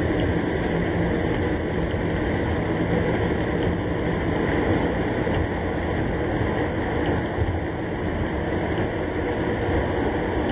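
Steady rush of rain and road noise heard from inside a car driving through a heavy thunderstorm downpour.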